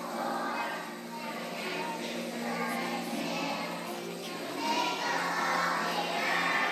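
Group of young children singing a song together, with acoustic guitar accompaniment; the singing gets louder about two-thirds of the way through.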